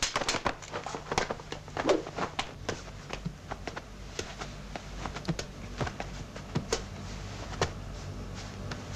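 Footsteps and sharp taps on a hard floor, irregular and close together for the first few seconds, then sparser, over a low steady hum.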